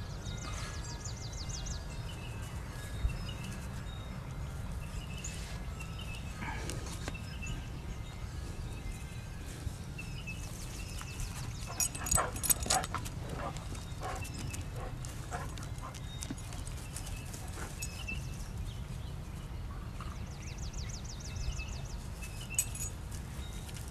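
A steady low rumble with faint high chirps. About halfway through there is a short run of sharp clicks and jingles as a giant schnauzer comes up close with its collar tag swinging.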